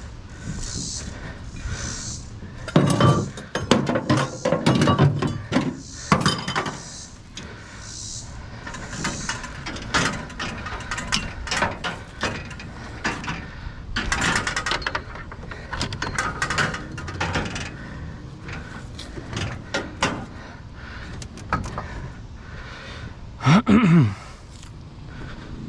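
Scrap items being handled and loaded: repeated clanking, rattling and knocking of metal and hard junk, in uneven bursts. Near the end comes a short, loud screech that falls in pitch.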